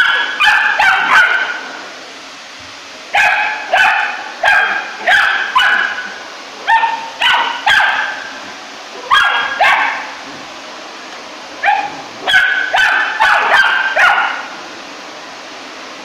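Three-month-old rough collie puppy barking in quick bursts of high-pitched barks at a running vacuum cleaner. The vacuum's steady whir runs underneath and is alone near the end.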